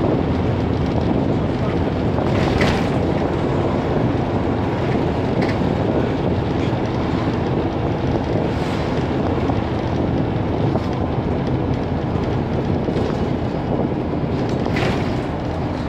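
Optare Solo SR single-deck bus on the move, heard from inside the cabin: a steady engine drone under road noise, with a few short clicks.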